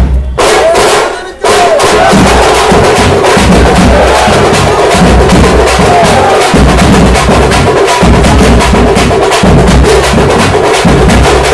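Loud, rapid drumming with heavy bass beats, with a few voices shouting from the crowd. The drumming drops away for about a second near the start, then comes back.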